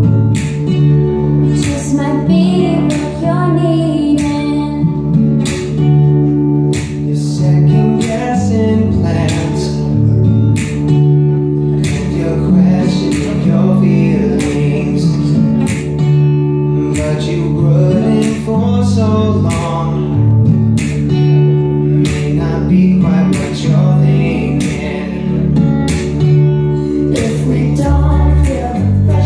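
Live music at a sound check: a guitar playing with a singing voice over it.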